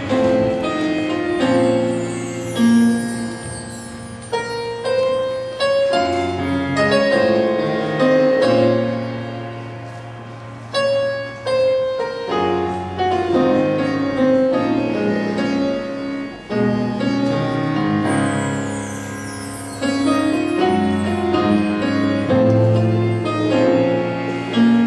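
School jazz band playing live, with the piano to the fore over low sustained bass notes.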